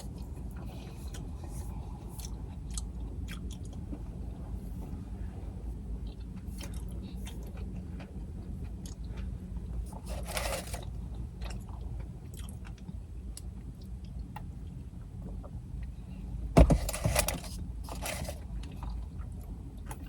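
Close-up chewing and biting of White Castle fish sliders, with small wet clicks over a steady low hum. About seventeen seconds in there is a sharp thump, followed by a few short rustling bursts.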